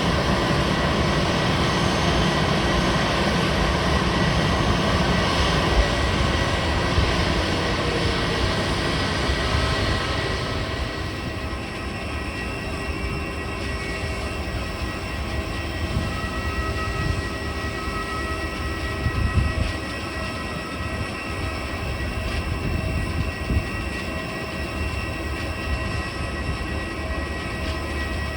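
Airbus A320 jet engines running, a loud steady rush for about the first ten seconds that then eases to a quieter run with a steady high whine.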